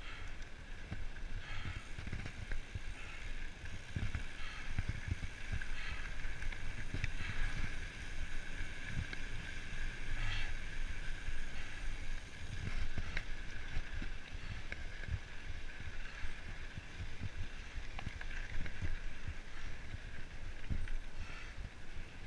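Mountain bike riding over a dirt trail: tyres on dirt with a steady whir, and many irregular low knocks and rattles from the bike jolting over bumps.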